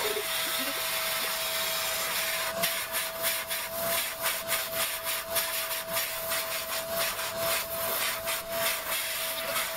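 Vacuum cleaner running with a steady whine, its nozzle drawn over a smooth collie's coat. From about two and a half seconds in, the nozzle rubs through the fur in quick rasping strokes, about three a second.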